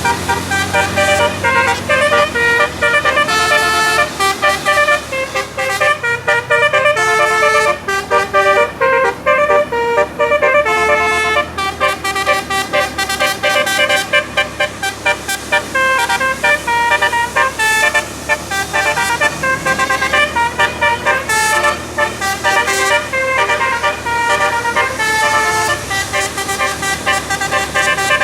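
'Telolet basuri' musical air horn on a bus, its several horn trumpets playing a fast tune note after note, often more than one tone at once, without a pause.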